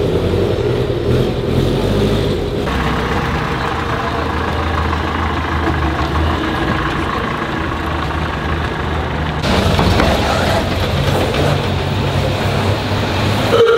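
Vintage vehicle engines running as they idle and move off. The sound changes abruptly twice, about three seconds in and again about nine seconds in. First comes a Tatra 600 Tatraplan's air-cooled flat-four, then a GAZ-21 Volga, and last an old flatbed truck pulling away.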